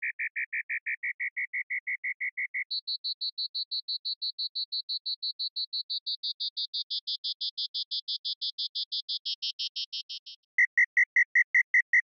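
Synthesized cricket chirp from Native Instruments Massive: a sine tone phase-modulated (FM) and gated by a square LFO into rapid buzzy pulses, about six a second. About a quarter of the way in the pulses jump up about an octave, and they grow raspier as the FM sidebands widen, then stop. Near the end a louder chirp pulse train from an Absynth FM cricket patch starts.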